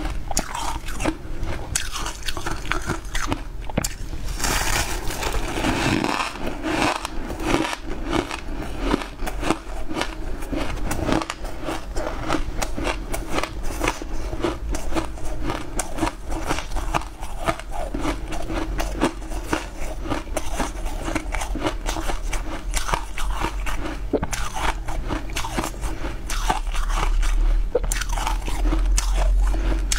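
Crunching and chewing of frosty blue ice chunks bitten off a large block: a dense, steady run of crisp cracks and crackles, busiest about five seconds in.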